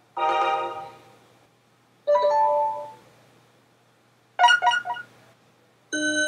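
BlackBerry Bold 9700 built-in alert tones played one after another: four short electronic chimes with brief silences between them. First a full, chord-like chime, then a two-note tone that steps up, then a quick run of bright notes, and near the end a held tone that begins.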